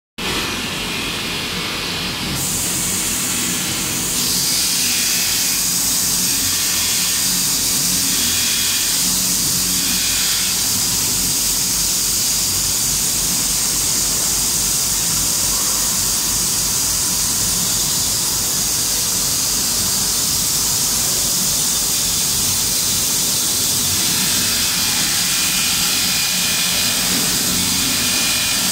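Abrasive belts of an automatic inner-and-outer sanding machine rubbing on a spinning stainless steel barrel: a loud, steady hiss over the low hum of the machine's motor, growing a little louder in the first few seconds.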